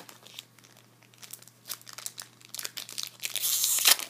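Foil trading-card booster pack crinkling as it is handled, then torn open with a loud rip for about a second, starting some three seconds in.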